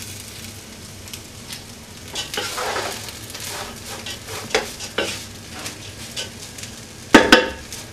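Wooden spatula stirring and tossing rice and beef fried in ghee in a hot pot, the grains scraping and sizzling against the pan. A few sharp knocks of the spatula against the pot, the loudest near the end.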